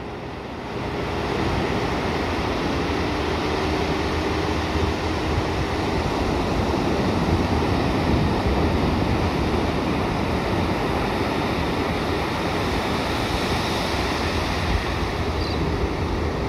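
Ocean surf breaking and washing up a sandy beach, a steady rushing of waves.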